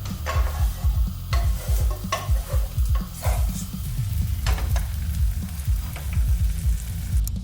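Low throbbing bass pulse running under irregular short bursts of rustling, crackly noise, about six of them.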